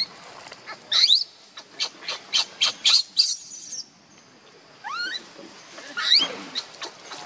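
Infant macaque crying: several shrill calls that sweep sharply upward in pitch, with a quick run of short, sharp squeaks between them.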